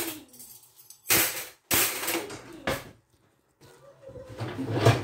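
Dishes and a dish rack being handled: a few sharp clattering knocks about a second in, then quieter handling noises near the end.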